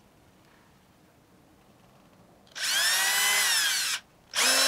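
Cordless drill boring a small breaker part to its finished hole size, run in two bursts: a whine of about a second and a half that speeds up and then slows, then a shorter half-second burst.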